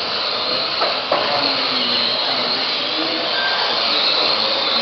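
Several electric radio-controlled Mini racing cars running together, their motors and gears whining and the pitch wavering as the throttles change. A short knock about a second in.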